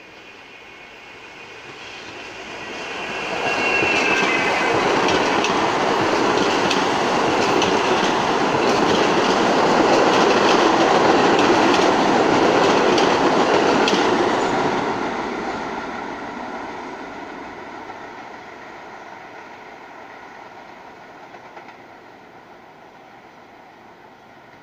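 New York City subway train passing through the station at speed without stopping. It builds up over a few seconds with a brief high whine, then runs with a steady wheel rumble and repeated rail-joint clicks, and fades away over the last several seconds.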